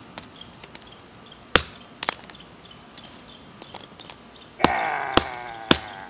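Claw hammer striking a lithium-polymer (LiPo) battery pack on stone to puncture it: sharp, separate blows, two in the first half and three in quicker succession near the end. The pack is at a 3.8 V storage charge and does not ignite.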